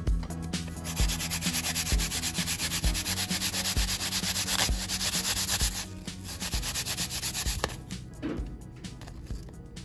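Apple being grated on a plastic grater: rapid rasping back-and-forth strokes for about five seconds, then a few slower strokes that stop near the end.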